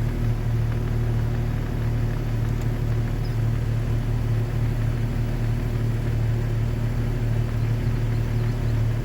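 Off-road vehicle's 4.0-litre engine running at a steady speed, a constant low drone with no revving.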